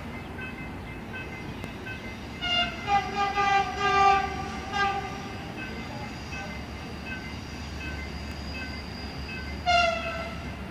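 Train horn sounding a quick string of short toots about two and a half seconds in, then one short blast near the end. Under it a faint beeping repeats a little more than once a second.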